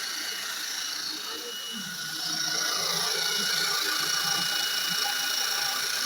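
Antique coffee grinder crushing coffee beans: a steady mechanical grinding rattle that gets louder about two seconds in.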